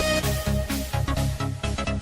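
Electronic dance music with a fast steady beat and heavy bass, its treble filtered away in a downward sweep.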